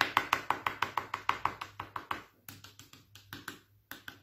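Palette knife tapping and dabbing into a thick layer of wet gesso to raise texture: quick, even taps about six a second, which slow to a few scattered taps after about two seconds.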